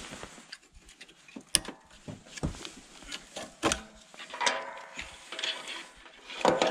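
Electric ATV winch on a plow mount being handled: scattered metallic clicks and knocks from the winch, cable and fittings, with a short mechanical whir about four and a half seconds in.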